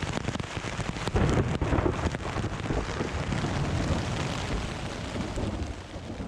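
Heavy rain beating on a tent during a thunderstorm, with a low rumble of thunder about a second in. The sound fades out near the end.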